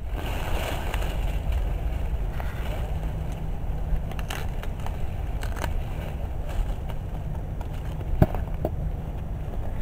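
Low, steady rumbling of wind on the microphone during an outdoor beet harvest. Over it come rustling and a few sharp knocks as beets are pulled and handled; the sharpest knock falls about eight seconds in.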